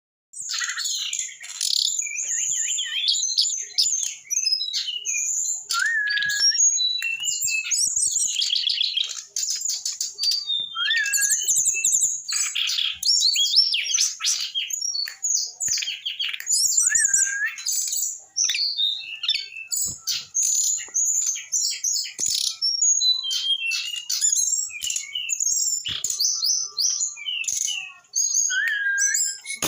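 Eight-month-old brown-chested jungle flycatcher singing a long, unbroken, varied song of rapid trills and high whistles. A short rising whistle recurs about four times. The bird is singing in the fast, continuous style keepers call 'rock n roll'.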